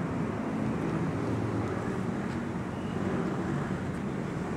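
Steady low rumble of outdoor background noise, with a few faint light ticks.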